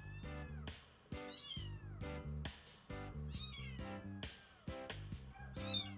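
A small black kitten meowing over and over, high-pitched calls that fall in pitch, about one a second, the loudest near the end. Background music plays underneath.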